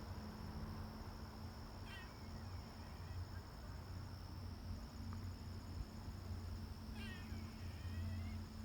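An animal calling twice, about five seconds apart. Each call is a short, high, downward-sliding cry followed by a string of quieter chirping notes, over a steady high-pitched tone and a low hum.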